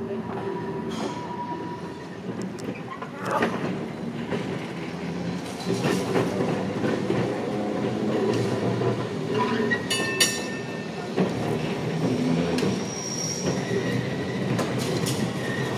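Heritage Brisbane electric tram running along street track towards the listener, a steady low rumble of wheels on rail with thin high squeals from the wheels now and then.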